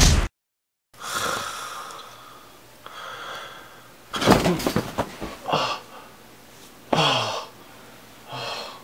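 After a moment of dead silence, a sleeping person breathes heavily and wheezily through an open mouth, one breath every second or two. He then lets out louder gasps and a falling groan as he wakes with a start.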